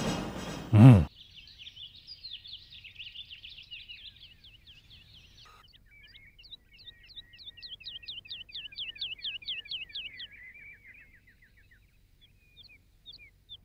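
Small birds chirping and twittering. A busy overlapping chorus gives way to a fast run of repeated chirps, about five a second, and then thins to a few scattered calls near the end.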